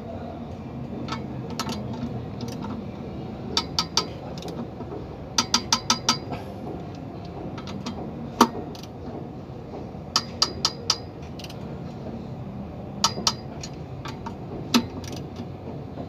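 Ratchet wrench clicking in short runs of a few sharp metallic clicks, with single clicks between, while the bolts of a truck clutch pressure plate are tightened.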